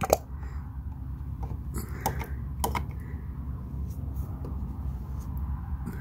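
A few short, sharp light clicks spread over several seconds, over a steady low hum.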